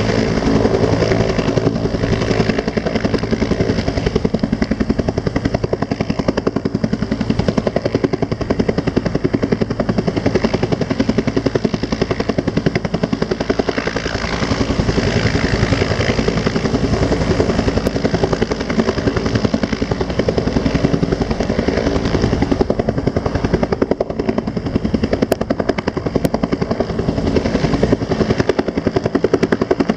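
Rescue helicopter running steadily, its rotor chopping in a fast even pulse over the turbine's steady whine.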